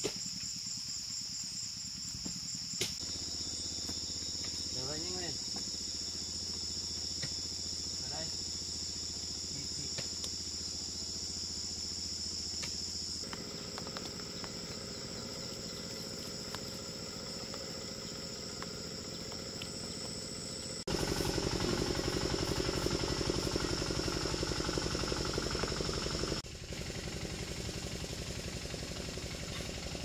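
Steady high-pitched buzzing chorus of insects in dense vegetation, continuous throughout, louder for a few seconds past the middle.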